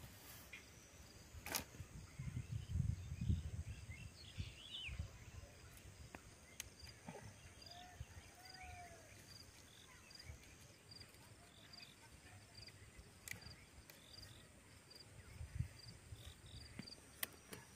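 Faint field ambience: an insect chirping in a steady repeated rhythm, a few bird calls, and rustling with occasional sharp snaps as spring onion stalks are picked by hand. Some low bumping about two to four seconds in is the loudest part.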